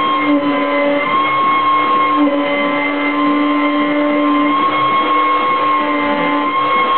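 CNC router milling a wooden board with a 4 mm bit, 3 mm deep at a 3 m/min feed: the spindle runs with a steady whine over a lower hum and cutting noise, dipping briefly in pitch now and then, while shorter tones come and go.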